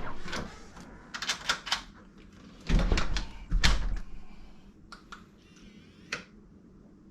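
Deadbolt lock and door being worked by hand: a series of sharp clicks and knocks, with two heavier thumps about three seconds in. The bolt is being thrown and retracted to check that it moves freely without binding.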